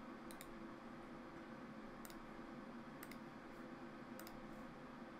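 A handful of short, sharp computer mouse clicks, several in quick pairs or threes, over a faint steady hum.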